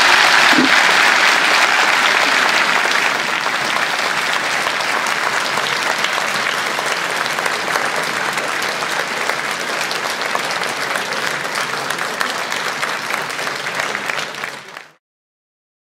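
A large audience applauding, loudest at first and easing off slowly, then cutting off abruptly near the end.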